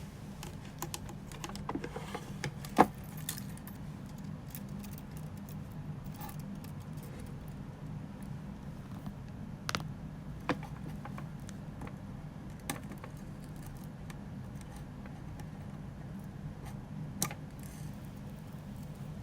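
Computer keyboard keys clicking: a quick run of taps in the first few seconds, then single key presses spaced several seconds apart, over a steady low hum.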